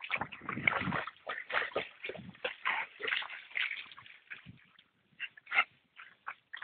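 Two dogs play-wrestling at the water's edge, making short dog noises amid scuffling, in quick irregular bursts that thin out after about four seconds.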